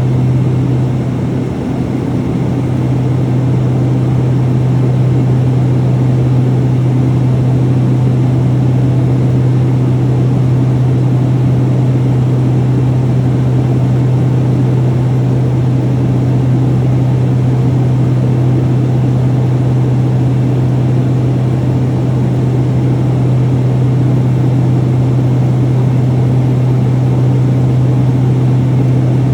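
Steady in-flight cabin drone of a Piper Cheyenne III's twin turboprop engines and propellers, with a strong low hum held at one pitch.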